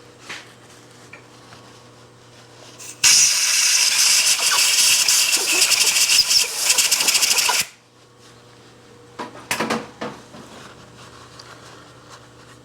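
A loud, steady hiss of compressed air blowing chips and filings out of a freshly tapped stud hole. It starts about three seconds in and cuts off sharply some four and a half seconds later. A few light metal clicks follow near ten seconds.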